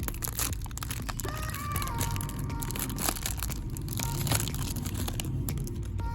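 Plastic snack-cake wrapper crinkling and rustling as it is handled and opened, in many small irregular crackles and clicks, with a brief faint squeak about a second in.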